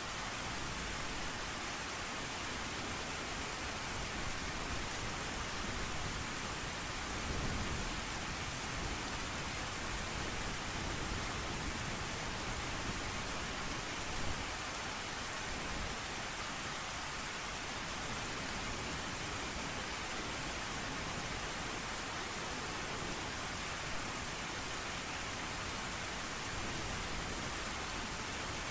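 Steady rain with a low rumble of thunder about seven seconds in.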